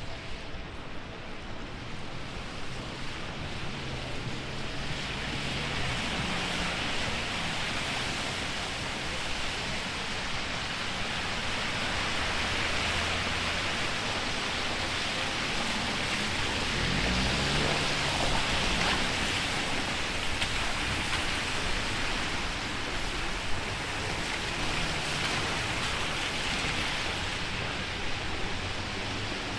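Heavy rain falling steadily, a dense hiss that swells over the first few seconds and then holds.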